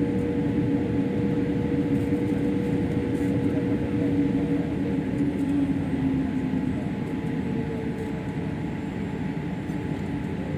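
Airliner cabin noise with the jet engines running during taxi: a steady rumble with a couple of steady humming tones, getting a little quieter after about seven seconds.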